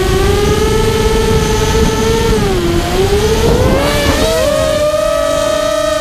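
The brushless motors of a 5-inch FPV racing quadcopter whine steadily. The pitch dips about halfway through, then climbs higher as the throttle comes up, and the separate motors briefly sound at different pitches. Wind rush from the props and airflow on the onboard camera's microphone sits underneath.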